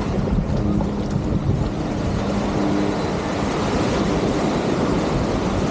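Wind buffeting the camera's microphones over the wash of surf on the beach, a steady rumble with a faint hum coming and going underneath.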